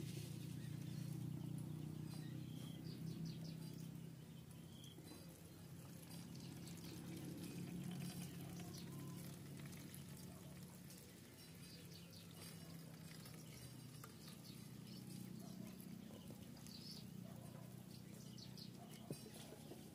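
Fuel poured from a plastic bottle into a brush cutter's plastic fuel tank: a faint, steady trickle that keeps on as the tank fills.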